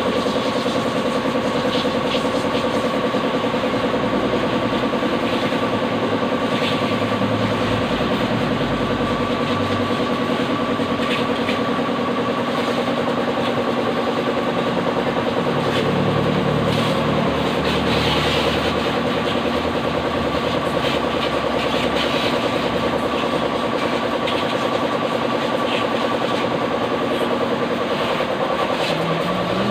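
Pressure washer running with a steady motor hum while its jet sprays water.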